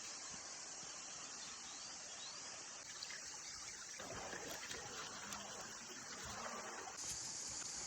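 Faint outdoor background: a steady high-pitched hiss, with soft rustling coming in about halfway through.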